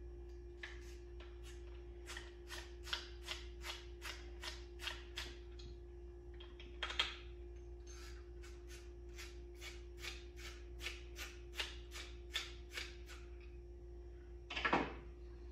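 Steady run of light clicks, about three a second, from a hex-bit driver turning out a rifle chassis's action screws. Near the end comes one louder knock.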